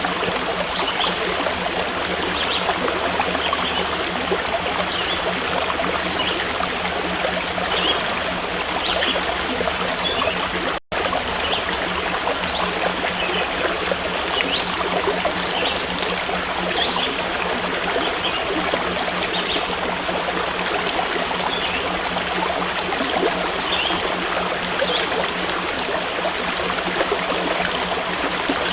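Running water of a stream, a steady rushing that does not let up, with short high chirps scattered through it. The sound breaks off for an instant about eleven seconds in.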